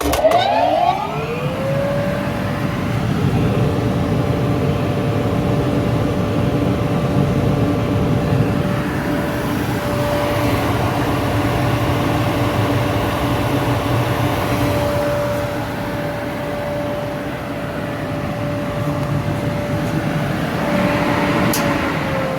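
Akamatsu Denki HVS-150 oil mist collector switched on: its fan motor spins up with a whine that rises over about two seconds, then runs steadily with a hum and a rush of air. Near the end there is a click and the whine begins to fall as it is switched off and spins down.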